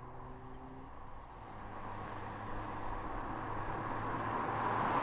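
A car approaching along a road, its tyre and engine noise growing steadily louder.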